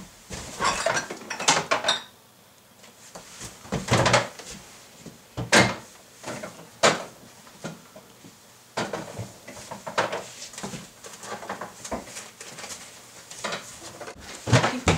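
Someone rummaging through an open refrigerator: irregular knocks and clatter of jars and containers being moved about, with quieter gaps between.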